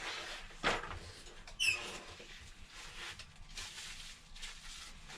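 Small handling noises of phone parts and packaging: a sharp click about two-thirds of a second in, a short squeak about a second later, then faint rustling.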